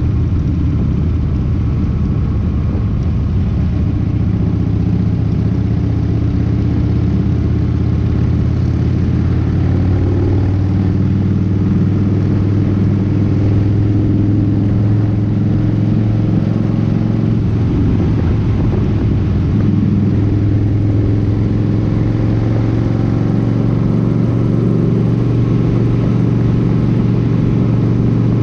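Cruiser motorcycle engine running at steady highway cruising speed, a low, even drone with road and wind noise.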